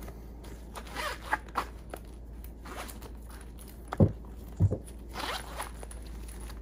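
Zippers on a faux-leather crossbody bag being pulled open in several short scraping runs, with handling rustle and two soft thumps about four seconds in.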